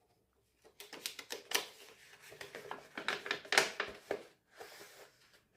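An album's packaging and photocards being handled and opened by hand: a quick, irregular run of clicks and crinkles.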